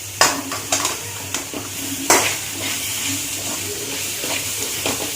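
Onion and spice-powder masala sizzling in a hot pan while a spatula stirs it, with several sharp scrapes and knocks of the spatula against the pan.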